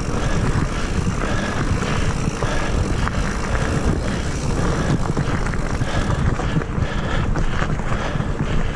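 Mountain bike riding fast over a dirt singletrack: a steady rush of wind buffeting the microphone, with tyres rolling over dirt and leaves and the bike rattling over bumps in a run of quick knocks.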